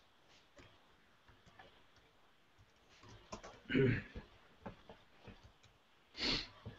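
Scattered computer keyboard and mouse clicks, heard over a video call. A louder dull thump comes a little past halfway, and a short soft burst of noise comes near the end.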